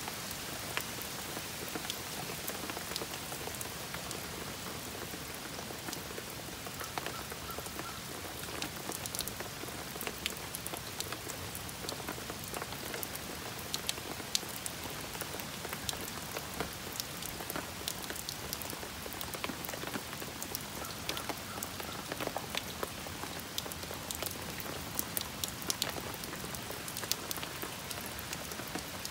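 Steady heavy rain falling on grass, puddles and pavement, with many sharp ticks of drops striking close by.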